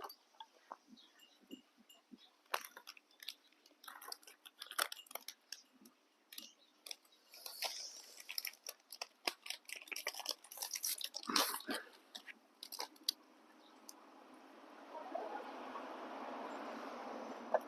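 Irregular clicks and clatter of utensils and containers as boat noodles are dished up and packed into a tiffin carrier, followed by a steady hiss that builds near the end.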